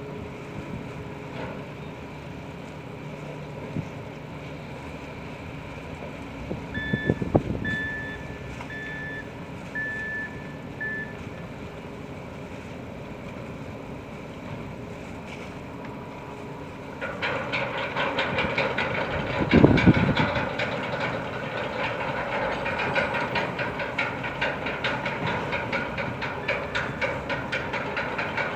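Steady low hum of ship and quay machinery, with a run of short, high electronic warning beeps and a thud about a quarter of the way in. Past halfway a louder, rapid mechanical clatter starts and keeps going, with a heavy thud soon after.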